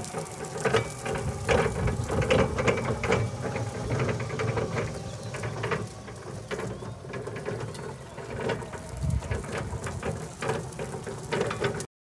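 Hyster R1.4 battery-electric reach truck driving and turning over concrete paving stones, with irregular clattering and knocking as its wheels and chassis run over the joints. The sound cuts off suddenly near the end.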